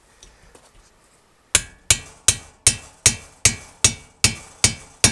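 A Thor hammer taps a steel socket extension, through a copper washer, to drive a valve guide into a heated cast-iron Sunbeam cylinder head. Even strikes start about a second and a half in, about two and a half a second, each ringing briefly.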